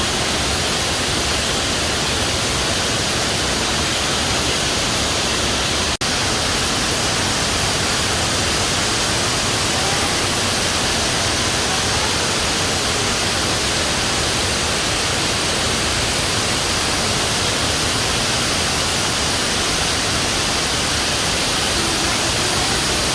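Large waterfall, Fukuroda Falls, a steady loud rush of falling water, with a momentary dip about six seconds in.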